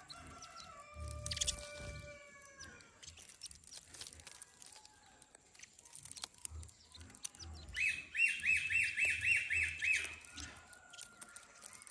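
Young hand-raised birds calling while being fed: a few drawn-out whistled notes in the first seconds, then a fast run of chirps, about four a second, for some two seconds near the end.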